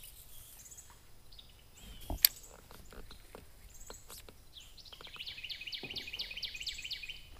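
A single sharp click about two seconds in, then faint, irregular ticks as a fishing reel is cranked. Over the second half a bird sings a rapid run of repeated chirps, about six a second.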